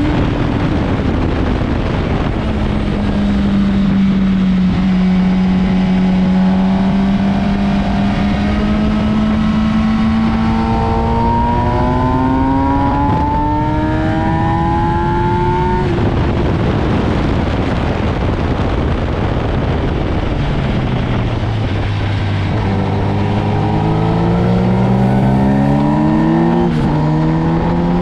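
Motorcycle engine at speed on a race track under heavy wind rush. The engine note climbs slowly through the first half, falls away about sixteen seconds in, then comes back low and rises again.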